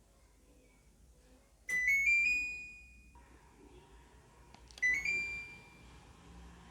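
LG split air conditioner's indoor unit giving its short rising electronic chime twice, about three seconds apart, as it is switched on. A faint steady hum sets in between the two chimes.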